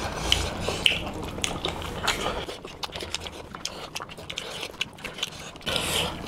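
Two people eating rice and curry with their hands: wet chewing and lip-smacking, and fingers squishing the food, heard as many short irregular clicks.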